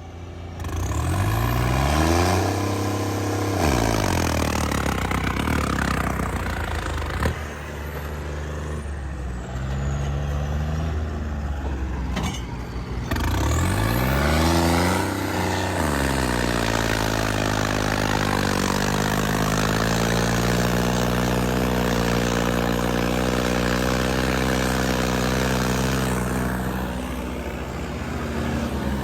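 Tractor diesel engines revving up and down under heavy load as tractors pull against each other in a tug-of-war, then held at a steady high rev for about ten seconds.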